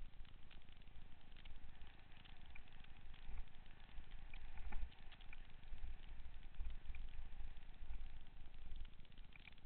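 A mountain bike ridden along dirt singletrack, heard from a helmet-mounted camera: a low, uneven wind rumble with scattered small rattles and ticks from the bike and trail.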